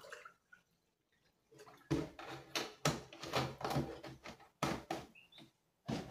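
Water poured from a plastic gallon jug into a metal travel mug, with the plastic jug knocking and clunking as it is handled. It is a string of irregular splashes and knocks starting about two seconds in.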